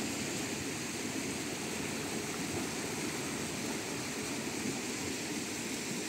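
Steady rush of flowing river water, an even noise with no breaks.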